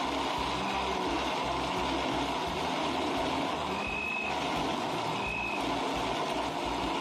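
Countertop blender running steadily at speed, blending watermelon chunks and ice into a smoothie. A higher whine comes and goes a few times over the steady motor noise.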